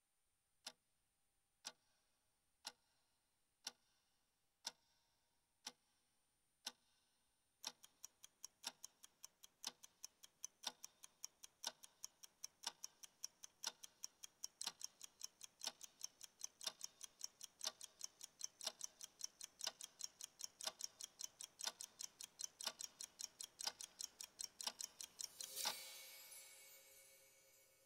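Clock ticking: one tick a second for about seven seconds, then about two ticks a second. Near the end a single struck note rings out and fades.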